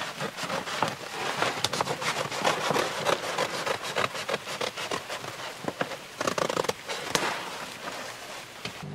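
Large black plastic sheet crinkling and rustling as it is handled and folded, with many irregular crackles and snaps.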